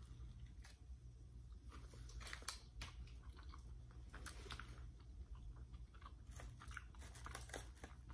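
Close-up mouth sounds of someone biting and chewing a mouthful of chicken burrito: soft, wet, irregular clicks and smacks, busiest in the middle and toward the end, over a steady low hum.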